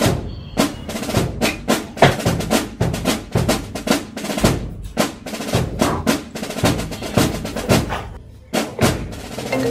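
Drum-led background music: a quick run of snare and bass drum hits, several a second, with a short break near the end.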